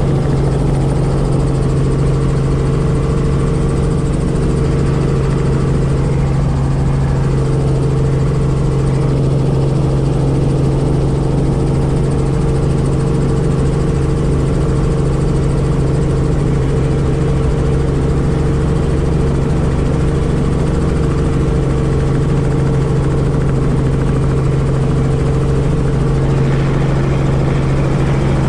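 Robinson R44 helicopter's engine and rotors running steadily, heard from inside the cabin as it hover-taxis low over the ramp. A constant deep hum with a higher steady tone above it.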